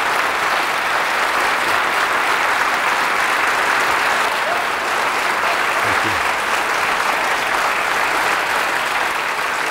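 A large audience giving a standing ovation, sustained steady applause that fills the hall.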